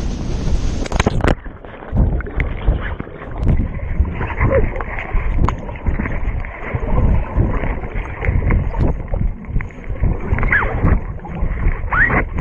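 Wind rushing over the microphone, then about a second in a plunge into the lake, after which everything turns muffled: underwater bubbling and churning water with many small clicks and pops from bubbles around the submerged camera.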